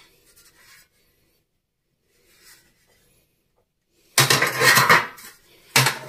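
Galvanized sheet-steel cable trunking clattering and scraping as it is laid down on a concrete floor across other lengths of trunking. There is a loud burst lasting under a second about four seconds in and a shorter one near the end.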